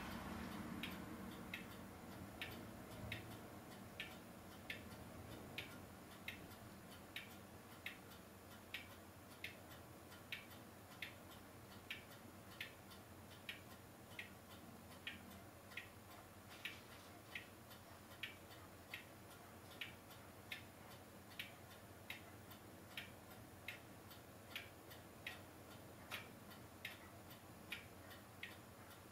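Faint, evenly spaced ticking, a little over one tick a second, over a quiet hiss. A low rumble fades out in the first couple of seconds.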